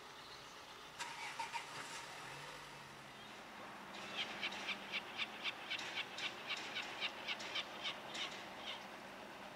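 Heavy-haulage lorry's engine running steadily as it moves slowly under load. A short cluster of sharp ticks comes about a second in, then an even run of sharp ticks about four a second for roughly five seconds.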